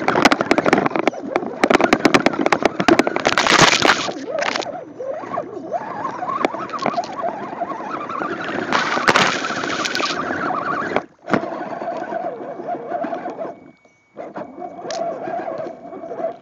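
Electric motor and gear whine of an Axial SCX10 Dingo RC crawler, heard through a phone taped to the truck, rising and falling with the throttle and cutting out briefly twice. The first few seconds are full of rapid scraping and crackling as the tyres and chassis climb over a rock and through grass.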